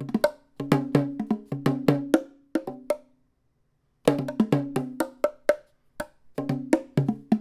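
Eastar EBO-21 bongos with 7- and 8-inch buffalo-leather heads, played by hand in a quick rhythmic pattern of sharp, ringing slaps and tones. The playing breaks off for about a second partway through, then picks up again.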